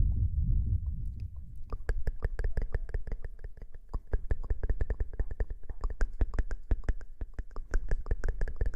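Close-miked ASMR trigger sounds: a low rubbing rumble against the microphone, then quick crisp taps or scratches, several a second, over a faint steady tone.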